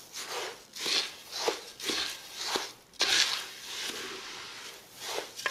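Wooden spoon stirring dry basmati rice through hot oil in a clay pot: the grains rustle and scrape against the pot in repeated strokes, about one or two a second. The rice is being toasted until golden.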